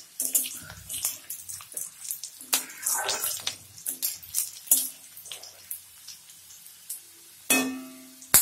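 Garlic cloves frying in hot oil with dried chilli and cumin, sizzling and crackling irregularly as they are stirred in the pan. About seven and a half seconds in, a louder knock rings briefly, like a metal utensil against the pan.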